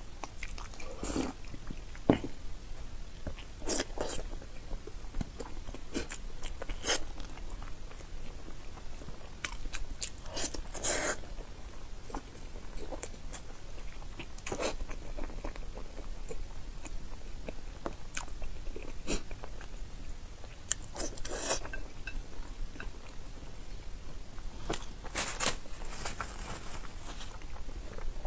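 Close-miked mouth sounds of eating spicy boiled eggs: bites and chewing with irregular sharp clicks, and a few louder, longer stretches spread through.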